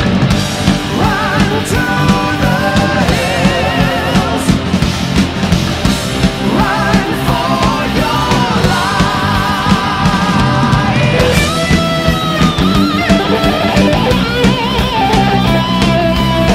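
Background rock music with a singing voice, loud and continuous.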